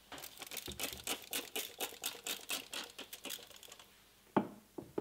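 A rag scrubbing a wet, chrome-plated steel handle on a wooden bench to clean it before plating, a quick scratchy rustle of about five strokes a second. It stops near the four-second mark, followed by a sharp knock and two lighter knocks.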